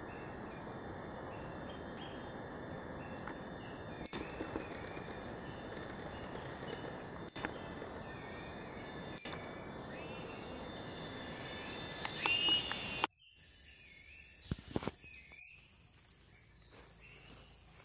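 Forest ambience: a bird calls again and again in short dipping notes over a steady rushing noise and a high, thin insect drone. About thirteen seconds in, the rushing noise cuts off suddenly, leaving the bird calls and fainter insects.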